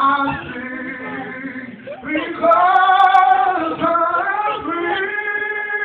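Singing voices carrying a slow melody with long held notes, growing louder about two seconds in.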